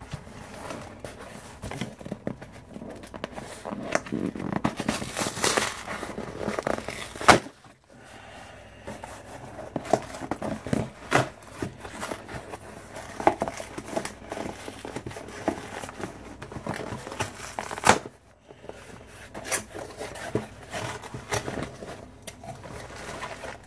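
Cardboard shipping box being opened by hand: packing tape tearing and cardboard flaps rustling, crackling and scraping, with two sharp, louder rips, one about a third of the way in and another later on.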